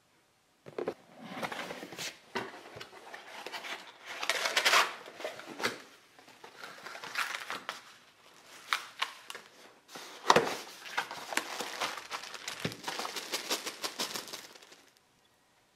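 Clear plastic wrapping crinkling and rustling as flyscreen parts are handled and unwrapped from their bags, in irregular bursts. Near the end, small bolts and washers click together as they are tipped out of a plastic bag.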